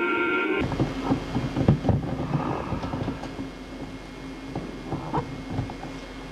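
Sustained intro music cuts off about half a second in, giving way to a room's background noise with a steady low hum and irregular thumps and rustles, busiest in the next second or two: handling noise as the camcorder is turned.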